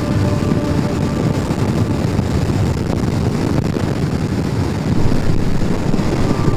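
Motorcycle riding at steady motorway speed, heard from a helmet-mounted camera: a dense low rush of wind buffeting the microphone with the engine and tyres underneath, a little louder about five seconds in.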